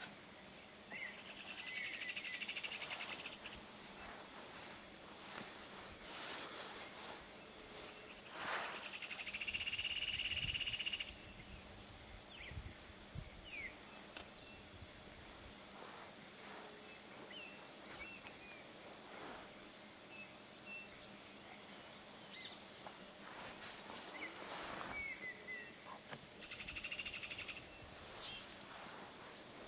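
Outdoor ambience of small birds chirping, with many short high calls scattered throughout. A rapid buzzing trill comes three times: shortly after the start, about ten seconds in, and near the end.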